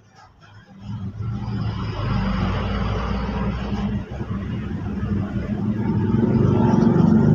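A motor running steadily, starting about a second in and growing louder toward the end.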